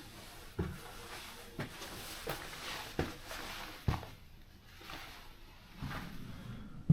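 Footsteps, a step roughly every second, with a heavier one near the end.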